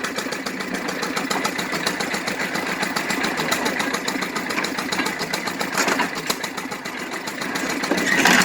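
Old hay baler running with a fast, even mechanical clatter, growing briefly louder near the end.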